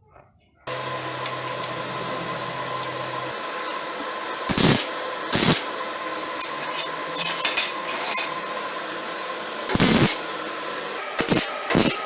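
MIG welder filling a hole with short bursts of arc: a few separate bursts, then quicker ones in a row near the end. Between them the running welder hums steadily.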